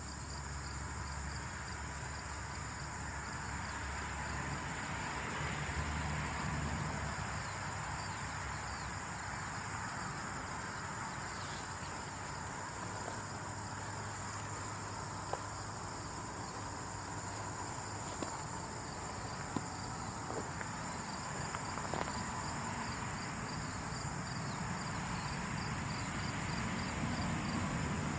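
Insect ambience, presented as ants building a colony: a steady high-pitched insect trill with a fast, even pulsing chirp over a soft hiss, with a few sharp clicks about halfway through.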